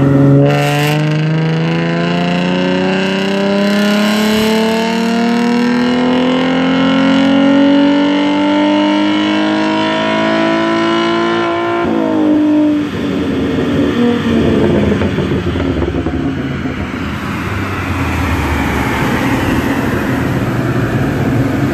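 Ford Mustang V6 with bolt-on intake and exhaust on a chassis dyno, making a full-throttle pull: the engine note climbs steadily in pitch for about twelve seconds. Then the throttle shuts suddenly, and the engine and dyno rollers wind down with the pitch falling.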